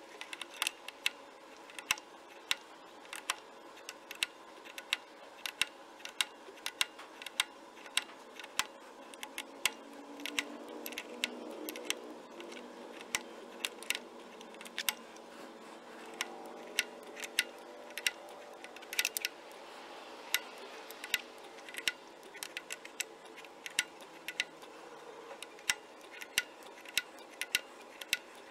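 Sharp metallic clicks, about two a second in uneven runs, as a wrench turns the forcing screw of a pulley installer pressing the pulley onto a Ford F-150 power steering pump shaft.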